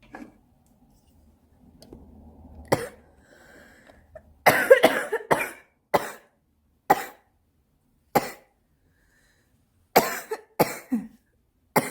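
A woman smoker in a coughing fit. After some faint breathing there is a run of hard coughs about four and a half seconds in, then single coughs about a second apart, and another quick run near the end.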